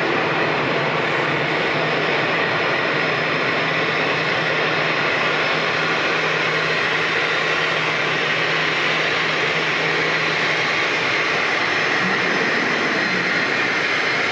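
Jet aircraft engines running, a steady roar with a faint low hum underneath that stops near the end.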